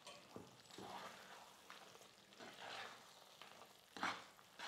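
Steel spoon stirring thick, sticky rice kesari in a nonstick pan: faint, irregular soft scrapes roughly once a second, the loudest about four seconds in.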